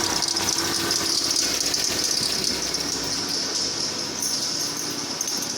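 Peugeot Passion engine idling cold, with a steady high-pitched noise from the alternator belt drive that eases slightly near the end. The owner suspects a faulty tensioner pulley or its bearing; the noise occurs only while the engine is cold.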